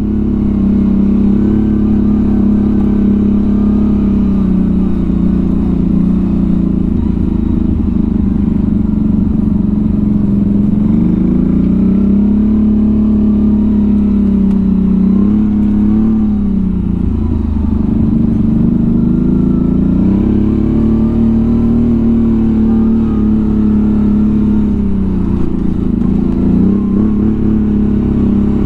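CFMOTO CForce 1000 ATV's V-twin engine running while riding, its note dipping and rising again several times as the throttle eases off and opens back up.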